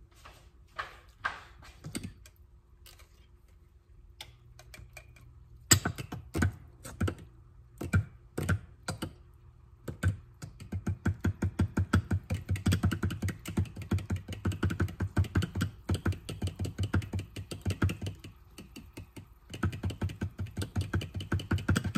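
Metal fork beating thick, solid coconut cream, clicking against its container as it works the cream toward liquid. It starts as scattered taps, then from about ten seconds in becomes a fast, even clicking, with a short break near the end.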